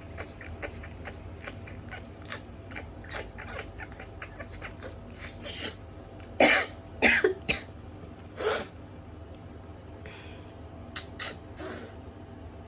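Hayfever sneezing fit: a run of short catching breaths and sniffs that build up, then a cluster of loud, sharp sneezes about halfway through, one more a second later, and a few softer ones near the end. A steady low hum runs underneath.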